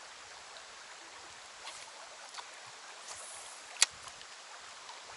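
Shallow river running over stones in a riffle, a steady rushing. A single sharp click a little under four seconds in is the loudest sound, with a few faint ticks before it.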